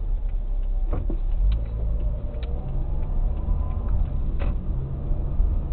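Car engine and road noise heard from inside the cabin as the car drives, a low steady rumble with a few faint clicks.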